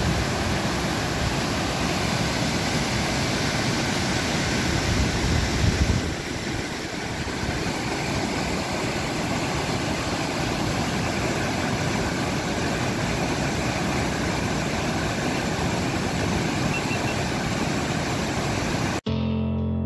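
Waterfall rushing: high water pouring through a dam spillway and down rapids, a steady roar of white noise, heavier in the bass for a moment about five seconds in. About nineteen seconds in it cuts off abruptly and keyboard music begins.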